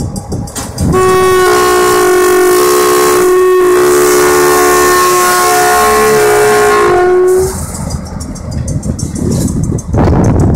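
GMD SW9 switcher locomotive sounding its multi-note air horn in a long, loud blast of several steady notes sounded together, lasting about six seconds with a brief dip partway through. After that comes the locomotive's diesel engine and wheel noise, louder again near the end.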